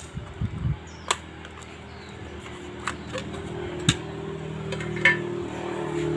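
Sheet-metal cover of a digital terrestrial TV receiver being handled and lifted off: a few scattered clicks and light metallic knocks. A low steady hum swells in the second half.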